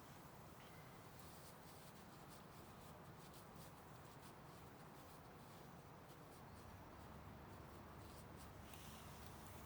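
Near silence: a faint steady hiss with light rustling and handling noise.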